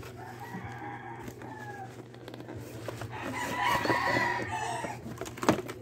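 A bird's long, pitched call in the background, loudest from about three seconds in, over the rustle of a cardboard box being handled; a sharp knock near the end.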